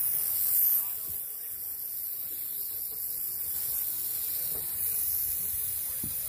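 Garden hose spraying water across a freshly milled wooden slab: a steady high hiss, loudest about half a second in.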